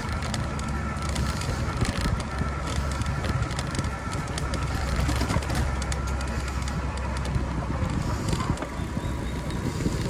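Riding noise from an e-bike on a trail: a steady wind rumble on the microphone with scattered light rattles and clicks.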